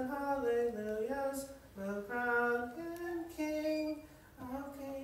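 A man singing solo in slow, sustained notes: the closing phrases of a hymn, ending on a long held note about four and a half seconds in.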